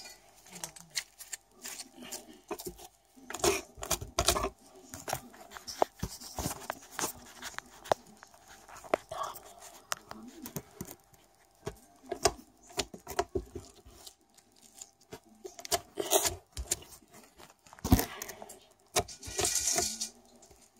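Slime being kneaded, pressed and pulled apart by hand, giving irregular sticky clicks, crackles and squelches, with a denser run of crackling near the end.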